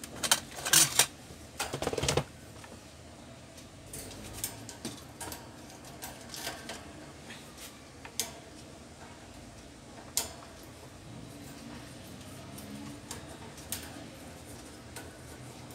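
Metal-and-plastic clicks and rattles as a desk electric fan's wire front guard is handled and pried at with a screwdriver to open the fan. A burst of loud clattering comes in the first two seconds, then scattered single clicks.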